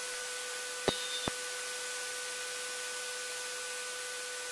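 Steady hiss of an aircraft intercom line with a faint steady hum, broken by two short clicks about a second in.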